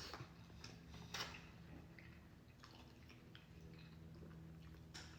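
Near silence with faint eating sounds: soft, wet chewing and a few small clicks, the clearest about a second in, over a low steady hum.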